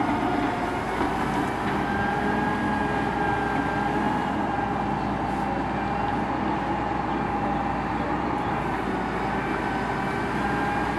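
Builtrite Model 88-TM truck-mounted material handler running steadily, an engine drone with a steady whine from its hydraulics, as the knuckle boom lifts a grapple load of brush up and over into the truck.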